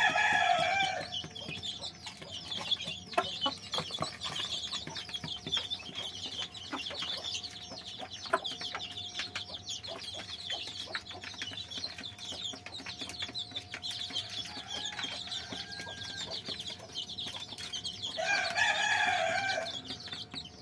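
Desi chicks, about six weeks old, peeping continuously in a flock. A louder call from an adult chicken, about a second long, comes near the start and again near the end.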